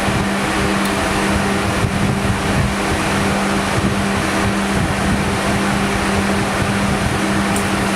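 Cruxweld SAW1200 submerged arc welding machine running: a steady electrical hum under an even hiss, unchanging throughout.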